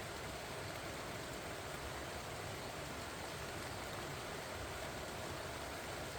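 Steady rain falling on pumpkin vines, an even patter with no separate drops standing out.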